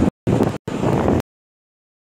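Wind rumbling on the phone's microphone over waves washing across a flooded beach. The audio drops out twice for an instant, then cuts to dead silence a little past halfway.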